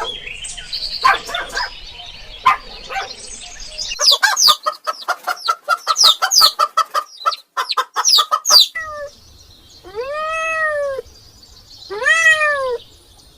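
Cats meowing: a fast string of short, high calls, then two long meows that rise and fall in pitch near the end.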